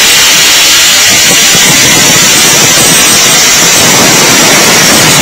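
Angle grinder with a metal cut-off wheel running at full speed and cutting into a rusted metal rod: a loud, steady, high-pitched grinding hiss.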